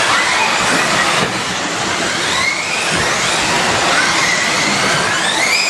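Several electric off-road RC buggies racing on a carpet track: overlapping high motor whines rise in pitch again and again as the cars accelerate, over a steady hiss of motors and tyres.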